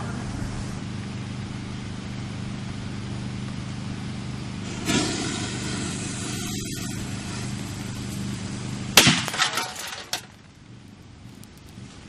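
A 4-gram firecracker exploding inside a toaster oven about nine seconds in: one sharp bang, then about a second of cracking and clattering as the oven is blown apart. Before it, a steady low hum and a brief hiss about five seconds in.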